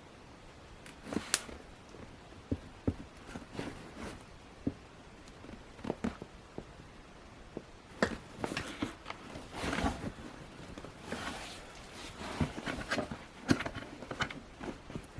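Scattered clicks, taps and knocks with brief rustling from hand work on tools and parts, getting busier about halfway through.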